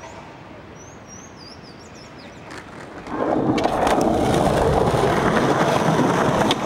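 Skateboard wheels rolling loudly over smooth pavement as the skater pushes and rides, with a few sharp clacks of the board. This starts suddenly about three seconds in. Before it there is quiet street background with a few high bird chirps.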